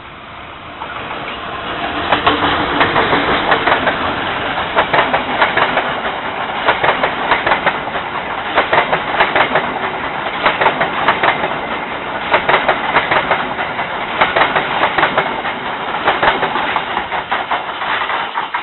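A KAI diesel-hauled passenger train passing close by, growing louder over the first couple of seconds as the locomotive goes past. Its coaches then roll by with a steady rumble and repeated clickety-clack of wheels over the rail joints.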